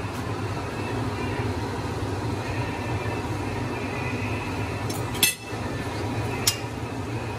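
Two sharp clinks of a metal fork against a cast-iron kazan of simmering plov, the first about five seconds in and the second a second or so later, over a steady low hum.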